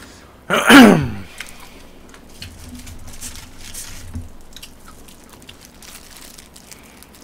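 A man's short, loud vocal sound that falls in pitch, about a second in, followed by faint clicks and crunches of eating: a plastic-gloved hand picking up fried chicken and biting into it.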